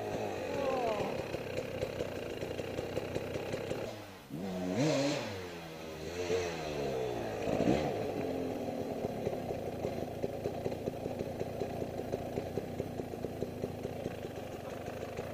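Two-stroke enduro dirt bike revving in short rising bursts as it comes in, with a sharp clatter about eight seconds in as the bike goes down on its side. After that the engine keeps running at a steady idle with an even fast beat while the bike lies in the dirt.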